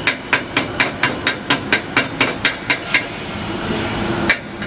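Rapid, even metal-on-metal knocks, about four a second, typical of a chipping hammer knocking slag off a fresh weld bead. The knocking stops about three seconds in, and one more knock comes near the end.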